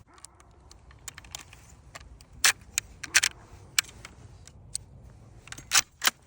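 Irregular sharp metallic clicks and clacks of rifle and cartridge handling, with the loudest clacks about two and a half, three and six seconds in.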